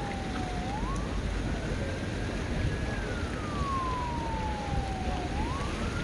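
Emergency vehicle siren wailing in a slow cycle: a quick rise to a held high note, then a long falling glide, repeating about every four to five seconds over steady street noise.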